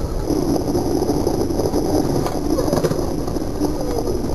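Skateboard wheels rolling on asphalt: a steady rumble, with a faint voice now and then.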